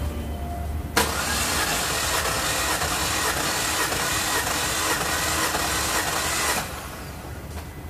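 Car engine cranked over by its starter motor for about five and a half seconds with a compression gauge in cylinder two, which has had oil added for a wet compression test. The cranking starts abruptly about a second in, runs steadily with a faint regular beat, and stops near the end.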